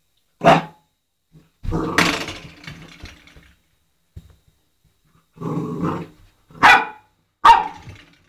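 Eight-week-old Old English Sheepdog puppy giving a handful of short, sharp barks and growls, with pauses of silence between them.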